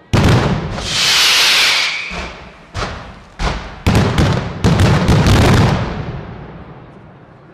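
Fireworks display: a sharp bang opens, followed by a loud high hiss lasting about a second. Then comes a rapid run of bangs, several a second, whose sound dies away slowly near the end.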